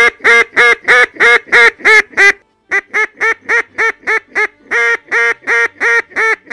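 Handmade Louisiana cane duck call, a river-cane barrel with a red cedar insert and a hard rubber reed, blown in a loud run of quick quacks, about three a second, with a short break about two and a half seconds in.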